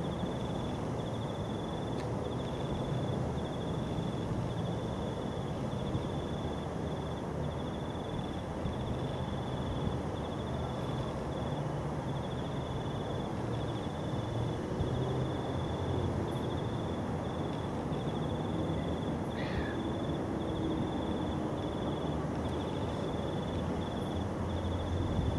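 A cricket chirping steadily in short, rapidly pulsed trills, repeated about once a second, over a steady low background rumble.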